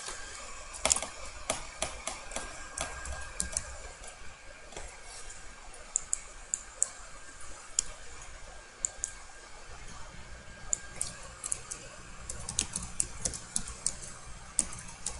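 Typing on a computer keyboard: irregular keystrokes in several short runs with pauses between them.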